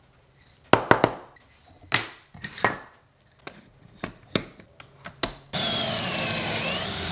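Wooden board knocked and clamped into a plastic pocket-hole jig, a series of sharp knocks and clicks. About five and a half seconds in, a cordless drill starts boring a pocket hole through the jig's guide, running steadily with a whine that dips and rises as the bit cuts into the wood.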